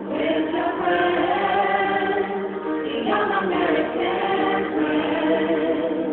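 A group of young women singing a song in Chinese together, holding long notes with several voices at once.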